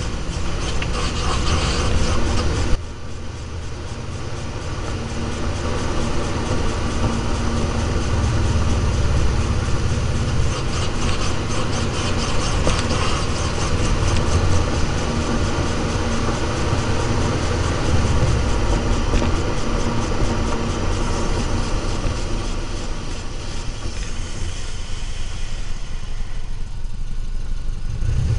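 Subaru car being driven, with steady engine and road rumble; the level drops suddenly about three seconds in, and a faint steady tone runs for several seconds after that.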